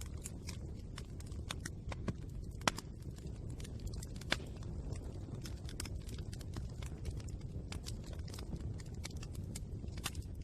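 Wood fire crackling: a steady low rumble of burning, with irregular sharp pops and snaps from the burning wood, two of them louder, a little under 3 seconds in and about 4 seconds in.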